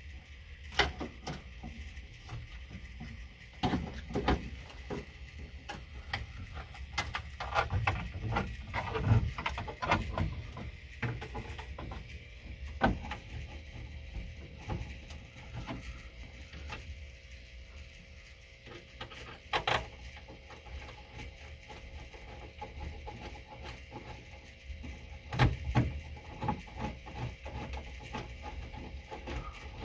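Irregular clicks, taps and knocks of hand work on a car dash, fitting a headlight switch, over a low steady hum. The knocks bunch together a few seconds in, and there are two sharper knocks near the end.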